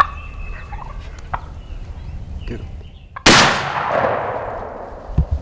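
A single shotgun shot about three seconds in, loud and sudden, with a long echo rolling away over the field as it fades. It is a hunter firing at a wild turkey gobbler at close range. Before the shot a few faint short calls are heard, the alarm putts of the wary gobbler.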